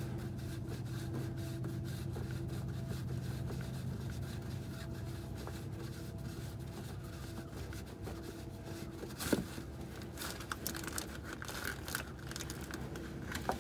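Plastic Ziploc bag crinkling and rustling around a diesel oil filter as it is turned loose by hand, over a steady low hum. There is a sharper rustle about nine seconds in, and scattered crinkles after it.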